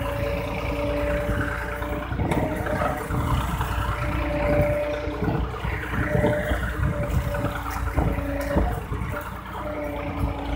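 Small motor and gears of a homemade toy tractor running under load, a faint whine that comes and goes over a low rumble, with scattered clicks and rattles as the tractor drives on.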